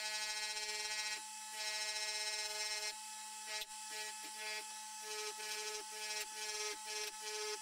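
Bench grinder running with a steady hum while a steel hammer head is pressed against the spinning wheel and lifted off again. The hiss and pitch change each time the metal touches, several times.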